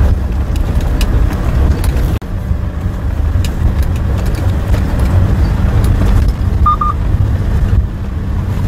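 Vehicle driving along a narrow mountain forest road: a steady low engine and road rumble, with faint scattered clicks.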